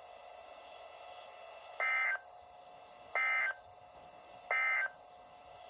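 Emergency Alert System end-of-message signal: three short, identical bursts of warbling digital SAME data tones, about a second and a half apart, marking the end of the weather-radio warning.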